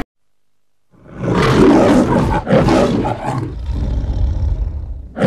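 Lion roar sound effect in the style of the MGM film logo: after about a second of silence, a run of growling roars.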